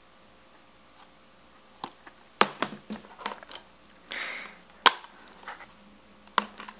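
Plastic Blu-ray keep cases being handled on a wooden table: a few sharp clicks and taps as cases are set down and picked up, a short rustle, and a loud click as a case is snapped open.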